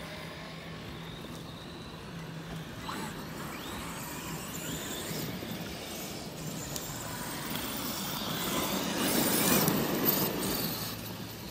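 Arrma Kraton 8S RC truck driving over grass and dirt: its electric motor whines in short rising glides under the tyre noise. The sound grows louder as the truck comes close, about nine to ten seconds in, then drops away.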